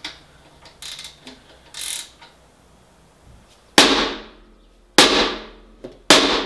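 Three hard, sharp strikes about a second apart, beginning about halfway through, each ringing out briefly, like a tool hitting metal; a few faint knocks come before them.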